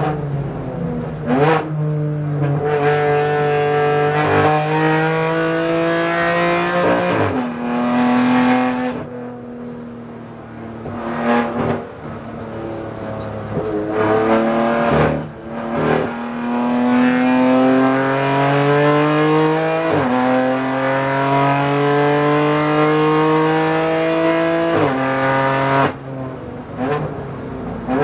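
BMW M4 GT4 race car's twin-turbo straight-six heard from inside the cockpit under hard driving. The engine note climbs through the revs with several sharp upshifts, falls away under braking with a few short sharp cracks on the downshifts, then climbs again through the gears.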